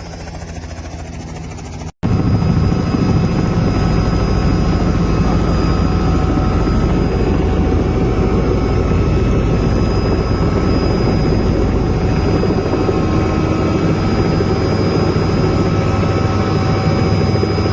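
Helicopter running close by: a loud, steady mix of engine whine and the fast beat of the rotor blades. It starts abruptly after a brief dropout about two seconds in, where a quieter sound breaks off.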